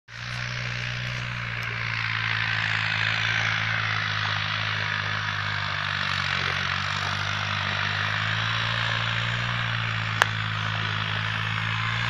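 Tractor engine running steadily, a low drone with a steady hiss over it; a single sharp click about ten seconds in.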